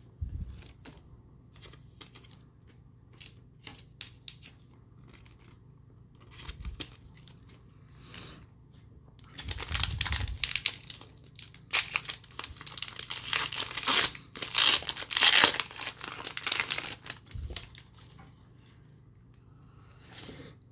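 Trading cards handled with light clicks and taps, then a foil Pokémon booster pack wrapper crinkled and torn open in a loud run of crackling that lasts several seconds and dies away near the end.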